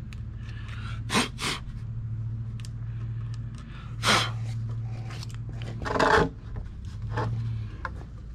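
Several short, sharp knocks and scrapes of lumber being handled and fitted together, over a steady low hum.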